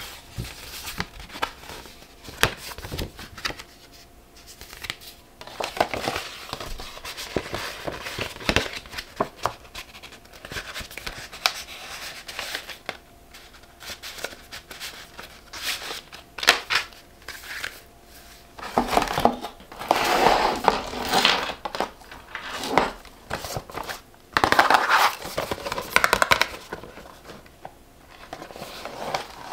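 Hermès paper envelopes and stiff card handled close to the microphone: rustling and crinkling with many light taps and clicks, and two louder stretches of crinkling near the end.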